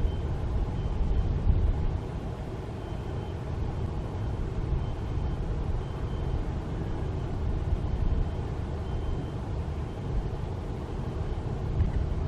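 Steady low outdoor rumble of distant road traffic, with a faint high tone recurring in short dashes.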